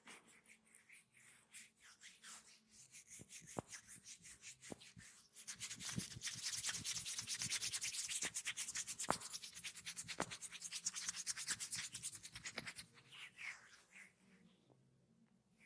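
Massage hands rubbing quickly back and forth over skin, several strokes a second. The strokes grow louder and faster about a third of the way in and stop near the end.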